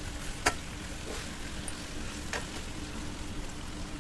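Chicken pieces in a spiced tomato-and-yogurt masala sizzling in a pan while a spoon stirs them. Sharp clicks of the spoon against the pan come about half a second in and again near 2.4 s.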